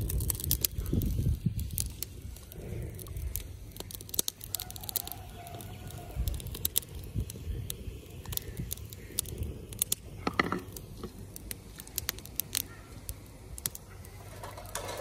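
Small scattered clicks and rustles of fingers picking through raisins on a ceramic plate, over a low outdoor rumble; a bird calls once about ten seconds in.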